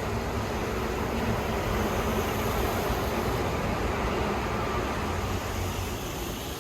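A passing vehicle: a steady rumbling rush that swells about a second and a half in and fades near the end.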